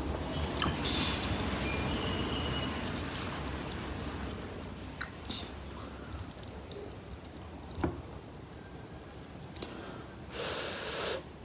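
Close-miked wet sounds of saucy instant noodles being handled, with soft squishes and a few light utensil clicks, and a louder wet rush of sound near the end.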